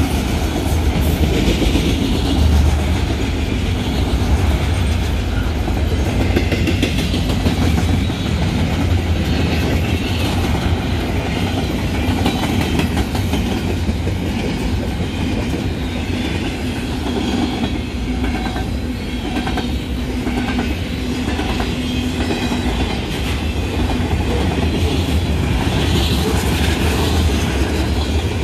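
Mixed freight train passing, a steady loud noise of steel wheels running on the rails.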